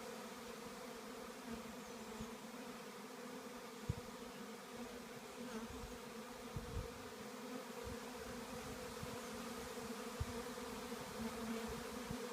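A swarm of honey bees buzzing steadily as they fly around and into a swarm trap, with a few faint low bumps on the microphone.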